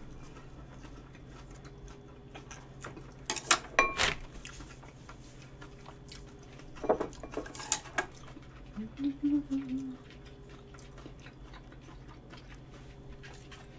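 Cutlery clinking against plates and dishes in two short clusters of sharp clinks, one ringing briefly, with a short hummed murmur a little past the middle. A steady low hum runs underneath.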